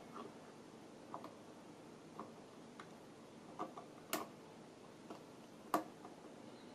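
Faint, irregular light clicks and taps, about one a second, from a soldering iron tip working the solder joints of a monitor power-supply board while desoldering capacitors. The sharpest two come about four and six seconds in.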